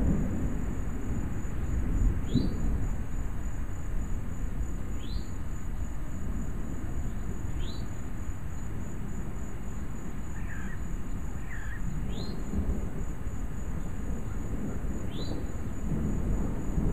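Distant thunder rumbling low and continuously, swelling about two seconds in, again around twelve seconds, and growing louder near the end. Over it a bird gives a short downward-sliding call every couple of seconds, with a steady high insect trill underneath.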